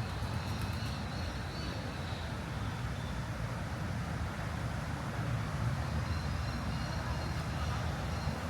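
Steady low rumble of city traffic, with faint high-pitched thin tones near the start and again near the end.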